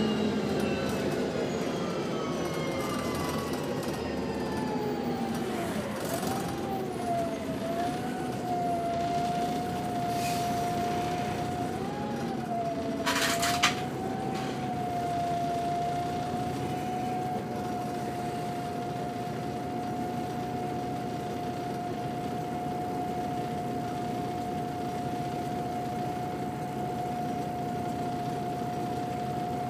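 Volvo B7TL double-decker bus's drivetrain heard from the lower saloon. A whine falls in pitch over the first few seconds as the bus slows to a stand, then settles into one steady high whine that holds while it stands. A short hiss of air comes about halfway through.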